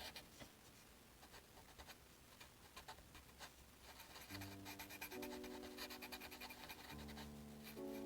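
Pen nib scratching on paper in short, quick strokes while a Zentangle pattern is drawn, faint. Soft background music with held chords comes back in about four seconds in.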